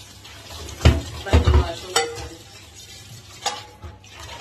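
Washing up at a sink: a non-stick pan and a plastic strainer basket knocking and clattering against the sink. There is a knock about a second in, a quick cluster of clatters just after, another at about two seconds and a lighter one near the end, each with a short ring, over a steady hiss.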